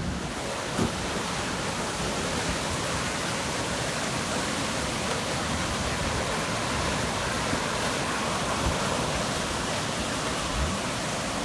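Black, debris-laden floodwater of a flash flood debris flow rushing down a creek channel in a steady, dense wash of noise, with a few brief low thumps.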